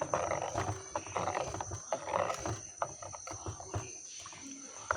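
A spoon stirring liquid rasam in a cooking pot (chatti): irregular scraping and swishing, with a few short knocks of the spoon against the pot.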